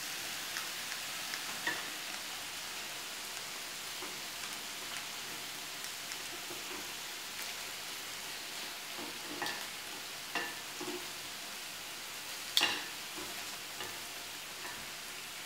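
Calamari sizzling on a hot grill, a steady frying hiss, with a few light taps and one sharper click near the end.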